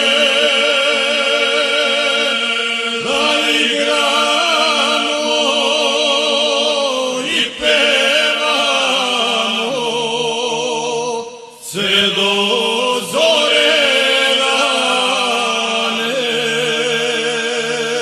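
Male vocal group singing a traditional Serbian folk song unaccompanied: a lead voice holds long notes with a wavering, shaking ornament over a steady lower held part from the other men. The singing breaks off briefly between phrases several times.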